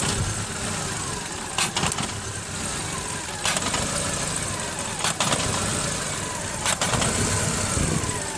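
Volkswagen Jetta engine idling with a cylinder misfire, broken by a few sharp, irregularly spaced snaps of high-voltage spark arcing: the sign of an ignition coil lead leaking current, which the mechanic takes for the likely cause of the misfire.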